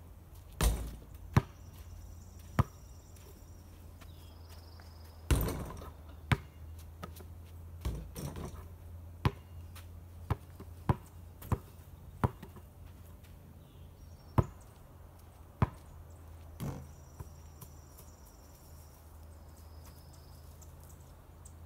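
A basketball bouncing and being shot at a portable backyard hoop: about fifteen sharp thuds at irregular intervals, a few of them louder with a short ringing tail, and a quick run of evenly spaced dribbles about ten to twelve seconds in.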